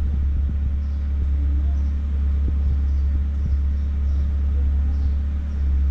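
Steady low mechanical rumble with a constant hum, like an engine or machine running nearby, at an even level throughout, with a few faint clicks.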